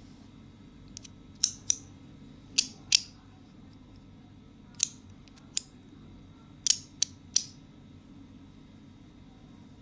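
Metal magnetic poker-card slider fidget toy being pushed back and forth: sharp metallic clicks as its layers snap into place, about ten in groups of two or three, each with a brief ring.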